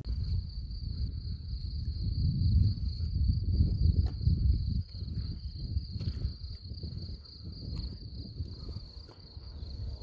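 A steady, high-pitched trill held on one pitch that starts abruptly, over low rumbling of wind buffeting the microphone.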